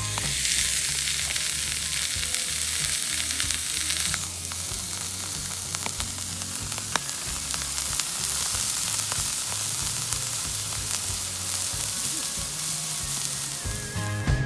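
Food sizzling as it fries in a hot pan, a steady hiss with a few sharp pops; the sizzle eases slightly about four seconds in.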